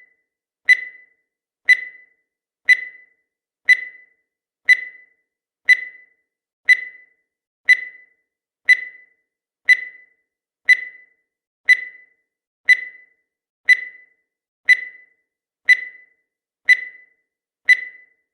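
Countdown timer sound effect: a short, high beep that fades quickly, repeating evenly once a second as the seconds count down.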